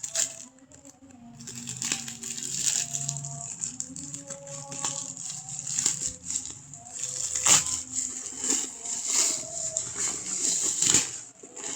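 Plastic packaging rustling and crackling with irregular clicks as a parcel is handled and unwrapped, over background music.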